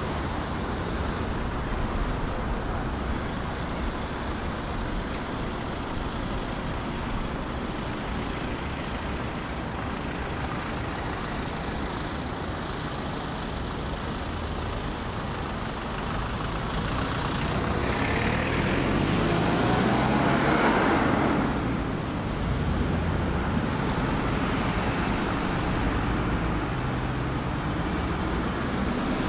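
Steady city street traffic noise, with one vehicle passing closer and louder about two-thirds of the way through, its engine note rising as it goes by.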